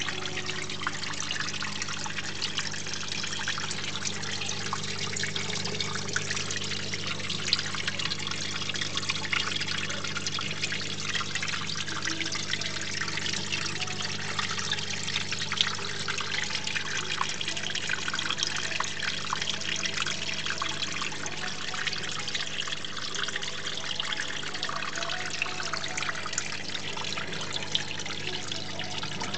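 Water trickling and splashing steadily in a terrarium's pebbled stream, with a steady low hum underneath.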